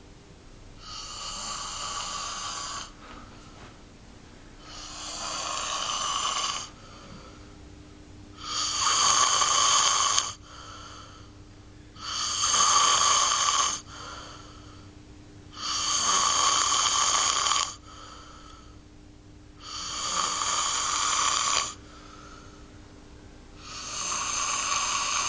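A man snoring heavily in deep sleep: seven long snores about every four seconds, each lasting around two seconds, with a faint short breath after each.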